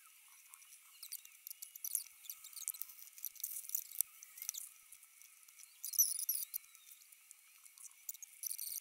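Small plastic LEGO bricks clicking and rattling as they are picked from a pile and pressed together by hand, with crinkling of a plastic parts bag. It is light, irregular ticking throughout, with a louder crackly burst about six seconds in.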